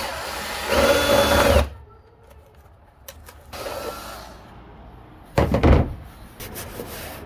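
Powered rivet nut tool running in short bursts as it sets a rivnut in the car's steel roof panel: a loud whining run as it draws the nut tight, then a quieter run as the mandrel spins back out, and another short burst near the end.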